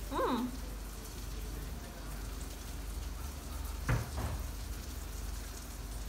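A short hummed "mm" from someone eating hot food, about the first half second, over a steady background hiss. A single sharp knock about four seconds in.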